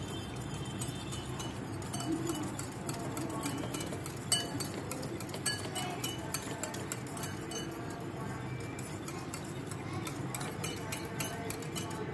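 Wire whisk beating curd in a bowl, the wires clinking against the bowl's side in quick, irregular ticks.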